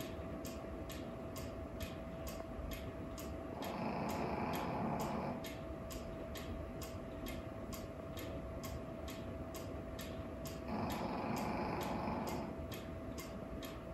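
German-made cuckoo clock's pendulum escapement ticking steadily with even, regular ticks over a faint steady hum. Twice a low rushing noise swells for about two seconds and fades.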